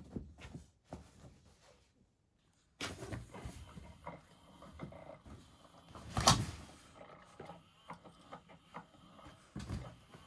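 Nylon pop-up cat tunnel rustling and crinkling as cats scramble in and around it, with scattered soft thumps of paws and bodies. A louder thump comes about six seconds in.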